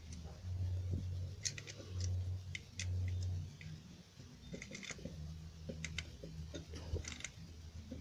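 Scattered light clicks and taps from hands working the screws and metal housing of an opened Oster blender motor. A low rumble comes and goes three times in the first half.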